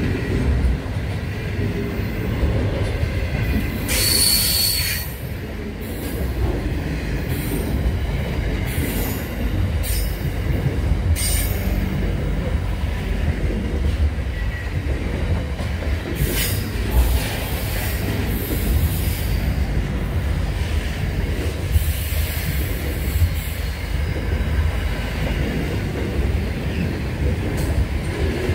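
Container freight train's wagons rolling past at speed: a steady low rumble of wheels on rail. Brief high wheel squeals and hisses come several times, the loudest about four seconds in.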